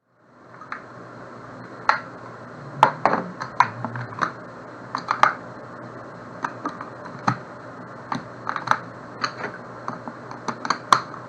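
Irregular light plastic clicks and taps of a TI-83 Plus calculator's case and parts being handled and fitted back together.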